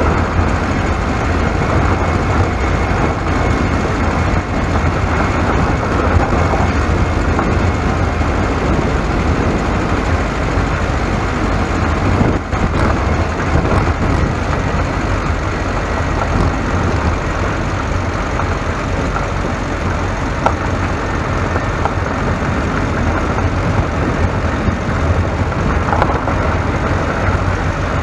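Steady low rumble of a vehicle moving along a road, with no change in pace.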